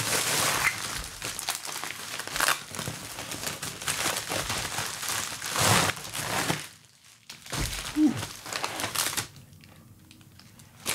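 Packaging crinkling and rustling as it is handled and unwrapped by hand, with a short pause about seven seconds in, falling quiet near the end.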